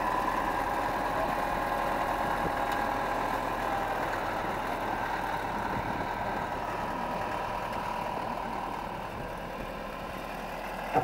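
Wheel loader's engine idling steadily, a constant hum that eases off a little toward the end.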